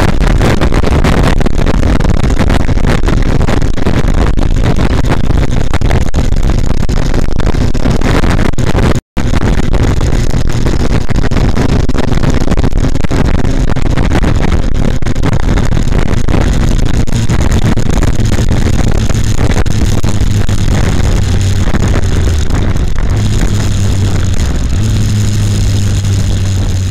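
Heavy wind buffeting on an uncovered camera microphone on a moving Yamaha FZ1 motorcycle, with the bike's inline-four engine running underneath. The sound cuts out for a split second about nine seconds in, and near the end the engine's steady low hum comes through more clearly.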